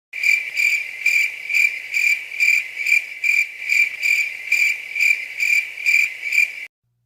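Crickets chirping, a stock sound effect: a high, pulsing chirp about twice a second that starts and cuts off abruptly.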